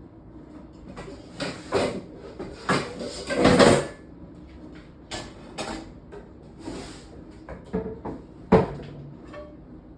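Kitchen handling sounds: a string of knocks and clatters from cabinet doors and cookware being moved, with a longer scraping clatter about three and a half seconds in and a sharp knock near the end.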